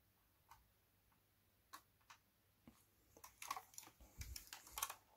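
Faint small clicks and taps of fingers handling a 1:18 scale model car while fitting its tiny side mirror back into place. A few scattered clicks come first, then a quicker cluster of small clicks and rustles over the last two seconds as the mirror is pressed home.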